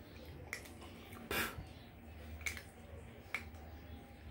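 Cats eating rice and fish from a tile plate, with four short sharp chewing and mouth clicks, the one about a second and a half in the loudest, over a faint steady low hum.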